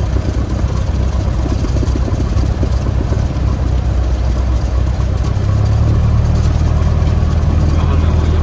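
Light training airplane's piston engine and propeller running at low taxi power, a steady low drone that grows a little stronger about five seconds in.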